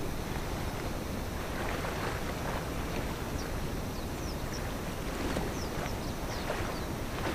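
Steady seaside ambience of wind and moving water, with faint short high chirps scattered through the second half.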